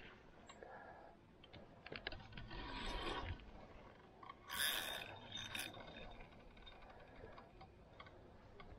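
Carp rod and spinning reel being handled while playing a hooked carp: faint clicking and scraping of the reel and rod. A brief louder rush comes about four and a half seconds in.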